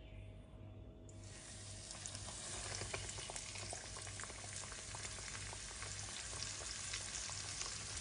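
Flour-coated pickled sour sea bream frying in oil in a pan: the oil starts to sizzle about a second in, as the fish goes in, and grows steadily into a crackling, spitting sizzle while oil is spooned over it. A low hum pulses about twice a second underneath.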